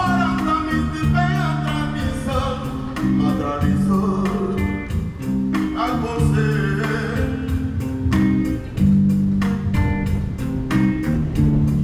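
Live band music: a man singing over a bass guitar line and a steady beat of large round hand drums.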